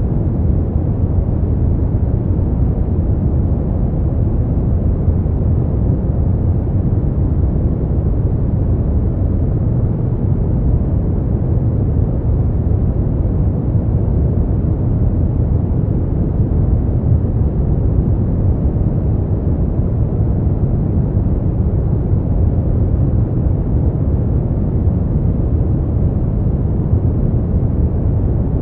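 Steady noise for sleep and relaxation, sold as white noise but deep and muffled, with its weight in the bass and almost nothing in the high end, like brown noise. It holds an even level without change.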